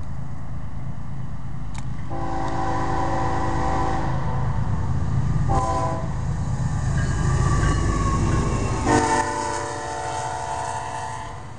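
Florida East Coast Railway diesel locomotive sounding its horn as the train passes: a long blast, a short one, then another long one, over the steady low rumble of the engines.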